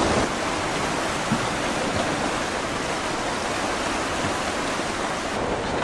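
Tsunami floodwater rushing steadily, a dense even wash of water noise without a break.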